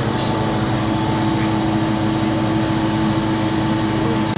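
A machine's motor running steadily, giving a constant hum with a fine low throb.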